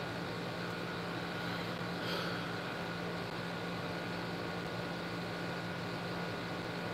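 Steady low hum and hiss of room background noise, with a constant low tone underneath.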